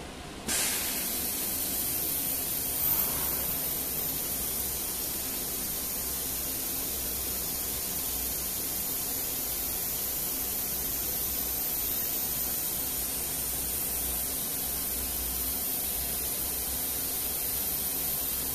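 Steady hiss of compressed air from a CNC router's automatic tool changer, cutting in suddenly about half a second in and holding level, while the machine changes tools and measures tool length.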